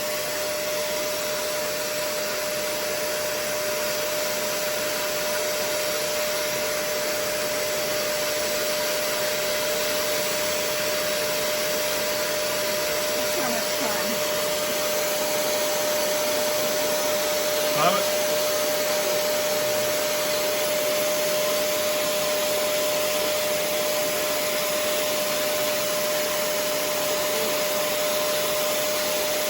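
Shark CarpetXpert carpet washer running steadily, its suction motor drawing through the handheld spot-cleaning hose tool with a constant high whine. A short, sharp sound cuts in once, about eighteen seconds in.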